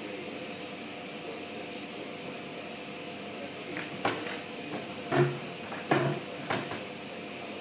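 A steady room hum, then about four sharp knocks and clicks in the second half: the parts of a knockdown table being handled and fitted together during assembly.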